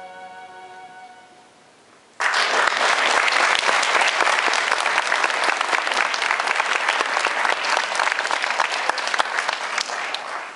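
The last held chord of the song's accompaniment fades out. After a brief hush, an audience's applause starts suddenly about two seconds in: dense, steady clapping that eases slightly near the end.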